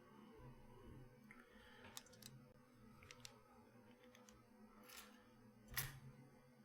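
Near silence: room tone with a few faint, scattered clicks and taps from small objects being handled, the loudest near the end.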